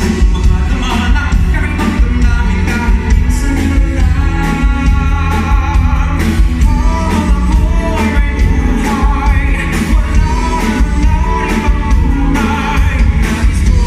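Live amplified band playing a pop-rock song with a singer over heavy bass and steady drum hits, during a sound check.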